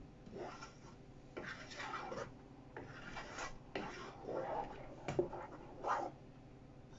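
A spoon stirring thick tomato sauce in a saucepan: repeated scraping, swishing strokes against the pot, with a couple of light knocks.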